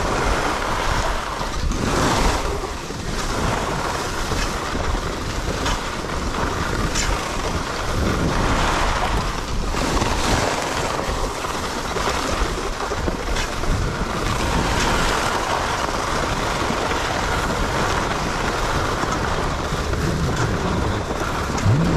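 Skis sliding and carving down groomed snow, a steady rushing scrape that swells and eases with the turns, mixed with wind buffeting the body-worn camera's microphone.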